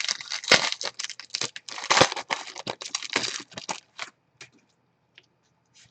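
Rapid clicking and crinkling handling noise, dense for about four seconds and then thinning to a few scattered clicks.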